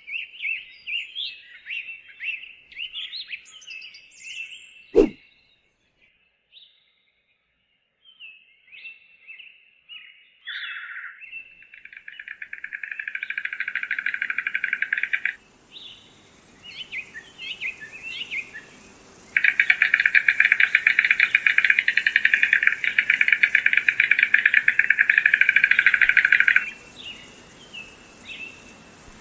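Birds chirping in short varied calls, with one sharp click about five seconds in, then long rapid buzzing trills. A steady high insect hiss joins partway through.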